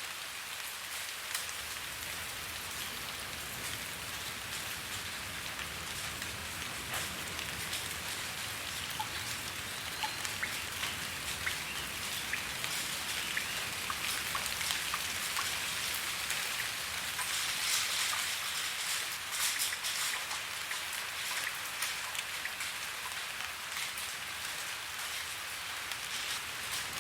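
Steady rain falling, with many close drops ticking on a surface over the hiss; it picks up a little around the middle.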